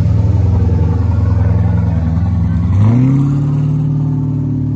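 Loud vehicle engine running steadily, then revving up about three seconds in and holding at the higher pitch as it slowly fades.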